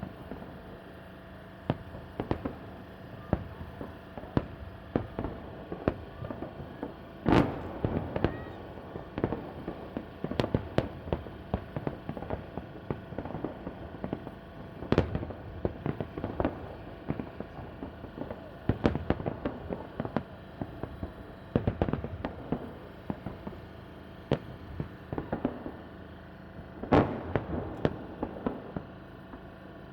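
Fireworks salute: aerial shells bursting in irregular volleys, sharp bangs mixed with quick clusters of smaller pops. The loudest bangs come about seven seconds in and again near the end.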